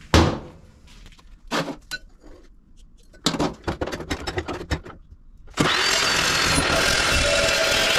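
Metal knocks and clatter as a cut piece of thick-walled steel pipe is set down on the bench and the long pipe is slid into the chop saw's vise. About five and a half seconds in, the Evolution R355CPS 355 mm chop saw's motor starts with a sudden loud rush and a whine that rises and then holds steady as the TCT blade spins up to speed.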